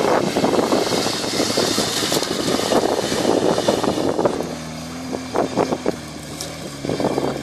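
Jeep Wrangler driving off-road through tall grass, its engine running under a dense rushing noise. About four seconds in this gives way to a 4x4's engine idling steadily, with a few light clicks.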